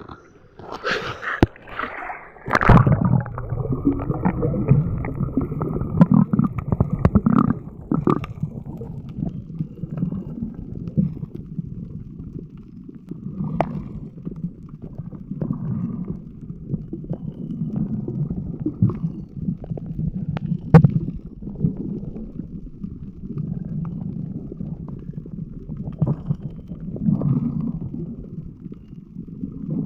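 Small fishing boat's engine running steadily at sea, a low rumble that starts up abruptly a couple of seconds in, with occasional knocks on the hull.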